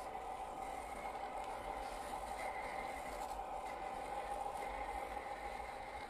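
1/10-scale RC crawler's electric motor and gear train whining steadily as it crawls over sandy dirt mounds, the pitch lifting a little now and then with the throttle.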